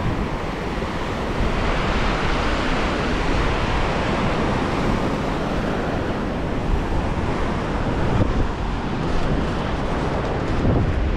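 Surf washing onto a sandy beach in a steady wash of noise, with wind buffeting the microphone.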